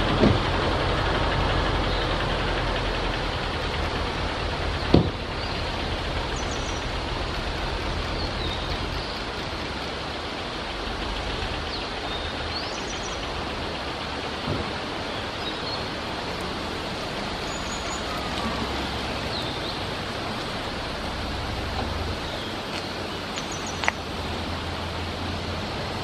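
Blue-and-white flycatcher singing short, high phrases every few seconds, faint and distant under a steady wash of road traffic noise. There are a few sharp clicks, the loudest about five seconds in.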